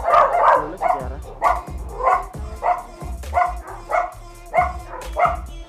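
Dog barking over and over at a steady pace, roughly one bark every two-thirds of a second.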